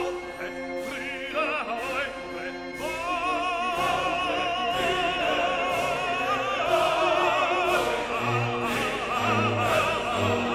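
Background music: operatic singing with a wide vibrato over an orchestra.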